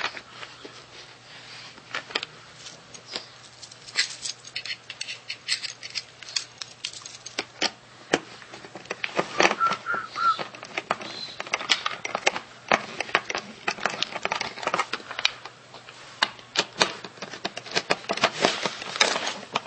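Irregular light clicks and clatter of plastic parts and screws being handled and fitted, as wheel covers go onto a toy ride-on motorcycle.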